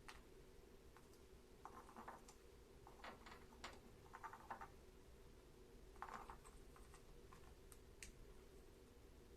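Budgies making faint clicks and taps with beaks and feet, in a few short clusters over a low steady hum.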